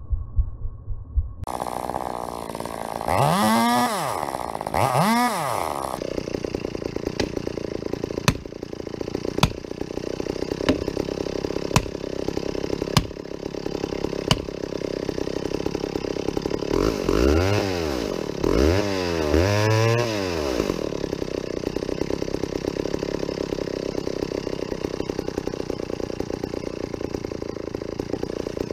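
Vintage McCulloch chainsaw going from idle to full throttle about a second in and revved up and down twice. It then runs at a steady pitch under load as it cuts, with a burst of three or four revs about two-thirds of the way through.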